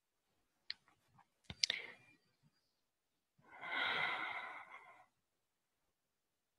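A person's long, breathy sigh lasting about a second and a half. It is preceded about two seconds earlier by a few sharp clicks.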